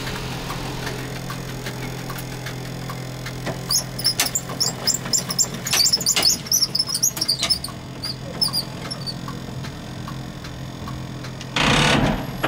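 Inside the cab of a 1960 Bern standard tram: a steady low hum, a run of short high squeaks and sharp clicks from about four to nine seconds in, then a short loud hiss of about half a second near the end.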